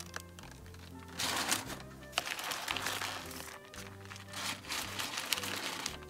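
Background music with a stepping bass line, with several bursts of stiff paper crinkling as butcher-paper-wrapped beef ribs are laid on a smoker's grate.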